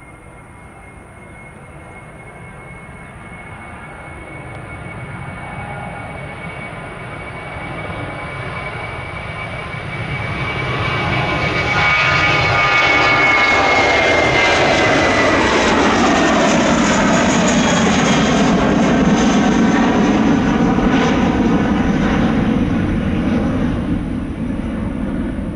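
Jet airliner passing close by. Its engine noise grows louder over about twelve seconds, and its high engine whine slides down in pitch as it goes past. A loud, low engine rumble follows and eases slightly near the end.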